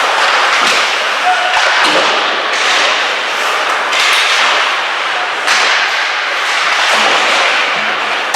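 Ice hockey play: skate blades scraping and carving on the ice in repeated hissing surges, with sharp stick and puck clacks and thuds.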